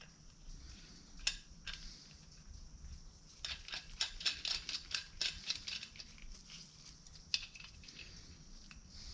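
Small metal brake fittings and caps from a master cylinder kit clicking and clinking as they are handled and fitted. There is a single click about a second in, a quick flurry of clicks in the middle, and another click near the end.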